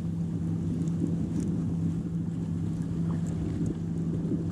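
Electric trolling motor on a bass boat humming at a steady pitch, with wind buffeting the microphone.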